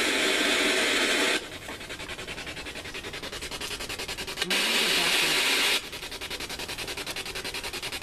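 SB7 spirit box, a radio scanner rapidly sweeping the AM and FM bands: a fast run of clicks many times a second, broken by loud bursts of radio static, one ending about a second and a half in and another from about four and a half to six seconds.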